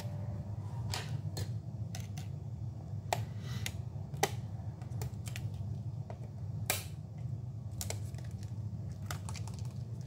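Scattered light plastic clicks and taps as a pry tool works the laptop's keyboard ribbon-cable connectors and the cable is freed. A steady low hum runs underneath.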